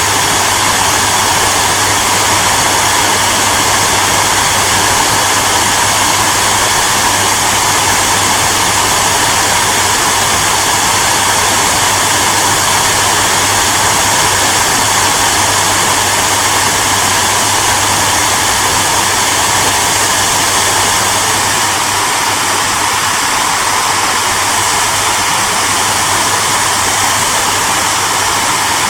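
Hair dryer running steadily: a constant rush of blown air over a low motor hum.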